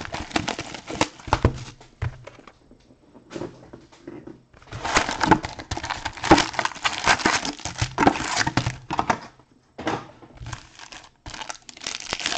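Plastic wrapping torn off a box of trading cards, then the foil-wrapped card packs inside crinkling as they are handled. It comes in bursts, with a pause of about two seconds and the longest, loudest stretch in the middle.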